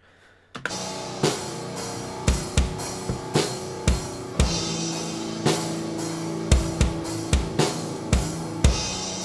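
Playback of a band's demo recording: a drum kit with held chords underneath, its kick drum played by EzDrummer 2 samples triggered from the recorded kick track. It starts about half a second in.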